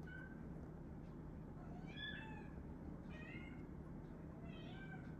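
Domestic cat meowing several times while carrying a stuffed toy in its mouth, faint, wavering calls spread a second or so apart.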